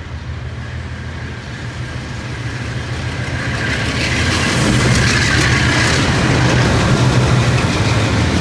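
A lashup of GE diesel-electric locomotives, among them a C30-7 with its 16-cylinder 7FDL-16 engine, passing close by under heavy throttle, their black exhaust a sign of hard working. A steady low engine throb with rail and wheel noise over it, growing louder over the first four seconds and then holding.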